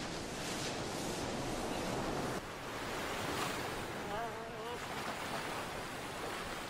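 Ocean surf breaking and washing onto a sandy beach, rising and easing in swells. About four seconds in, a short wavering cry sounds over it.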